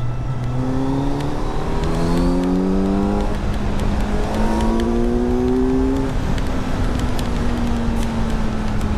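Kawasaki Z900's inline-four engine accelerating, revs climbing in two rising pulls with a break between them about three and a half seconds in, then holding steady at speed, with heavy wind noise.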